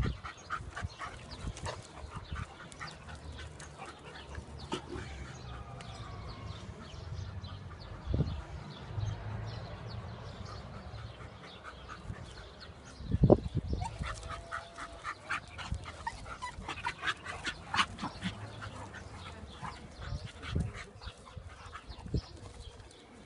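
Dogs playing: a busy patter of clicks and scuffles, with louder thumps about 8 and 13 seconds in and a few short whining cries.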